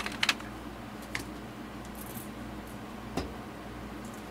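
A few light clicks and clinks of small tools and objects being handled on a workbench: two close together at the start, one about a second in and one after three seconds, over a steady low hum.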